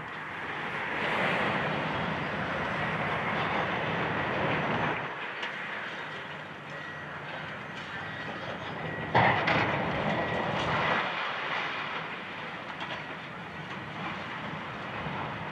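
Demolition excavator tearing into a gutted office building: a rumbling, clattering crash of falling debris for the first five seconds over the machine's diesel engine, then a sharp bang of breaking material about nine seconds in and scattered knocks after it.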